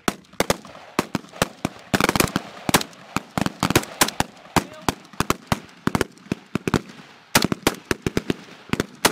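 Rifle fire on a firing range: many sharp shots at irregular intervals, some single and some in quick clusters, differing in loudness as several rifles fire at once, including an HK G36 5.56 mm assault rifle close by.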